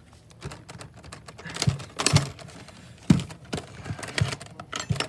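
Silverware being picked out of a dishwasher basket and sorted into a drawer tray: irregular light clicks and clinks, with a few sharper knocks about two and three seconds in.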